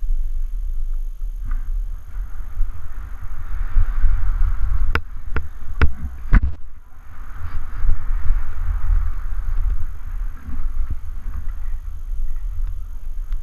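Skis sliding and scraping over packed groomed snow at speed, with heavy wind buffeting on the camera's microphone. A quick run of sharp clicks comes about five to six seconds in.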